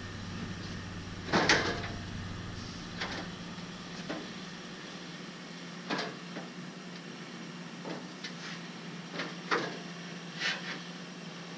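Scattered knocks and clanks of tools and parts being handled while working in a pickup's engine bay, the loudest about a second and a half in, over a steady low hum.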